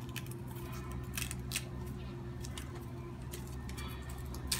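A potted bromeliad handled by hand: scattered sharp clicks and crackles, a handful over the few seconds, with one louder click near the end.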